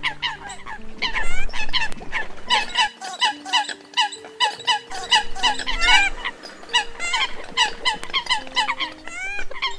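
Eurasian coots calling: a dense string of short, sharp calls, several a second, over background music with held low notes.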